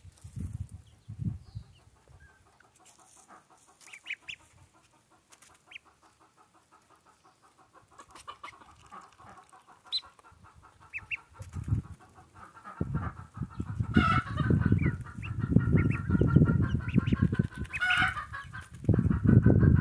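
Hen clucking softly in a steady pulsing run, with a few short thin peeps from ducklings early on. About two-thirds of the way in, a loud low rumble rises and becomes the loudest sound.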